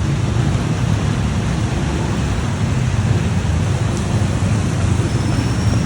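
Steady rush of heavy tropical rain, with a deep, continuous rumble underneath.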